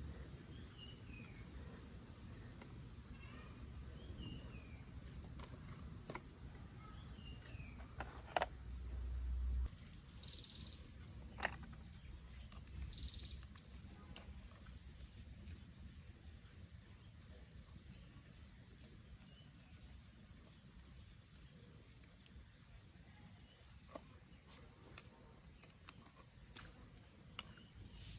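A steady high-pitched insect drone, like crickets. A low rumble swells and stops abruptly about a third of the way in, and a few sharp clicks fall in between.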